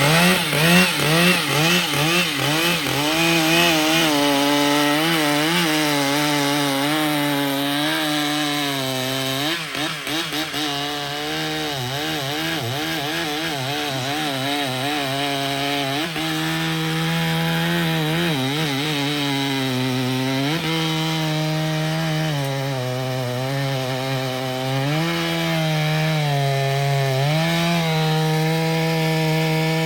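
Stihl two-stroke chainsaw running at high revs while cutting into a tree, its engine pitch repeatedly dipping and recovering as the chain bites into the wood.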